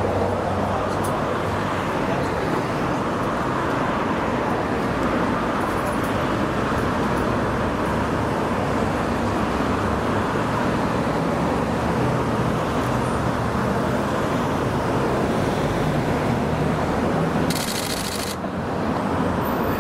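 Steady street traffic noise, an even rumble and hiss throughout, with a brief sharper hiss near the end.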